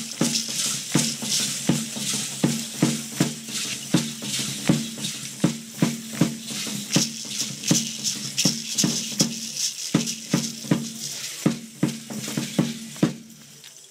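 Matachines dance accompaniment: a large drum struck in a steady, even beat, with a continuous shaking of rattles over it. The drumming stops near the end.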